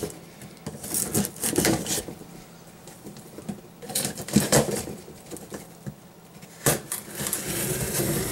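Cardboard shipping box being opened by hand: scraping and tapping of cardboard and tape in short bursts, about a second in, around four seconds in and again near the end.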